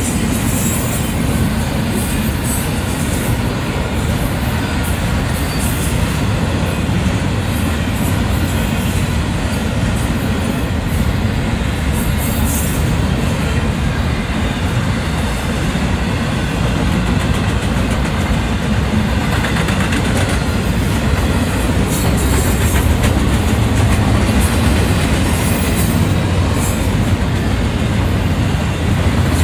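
Union Pacific double-stack intermodal train's container well cars rolling past close by: a steady, loud noise of steel wheels on the rails with scattered clicks, growing slightly louder near the end.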